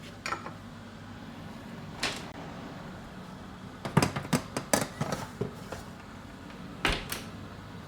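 Metal baking tray clanking against the oven rack and the oven door knocking shut: a single knock about two seconds in, a quick run of clanks around four to five seconds, and a last thump near the end. A steady low hum runs underneath.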